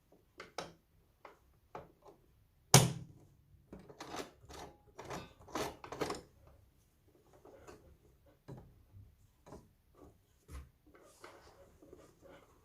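Irregular clicks, taps and rubbing noises of the wig cap and closure being handled and positioned at a sewing machine, with one sharp knock about three seconds in.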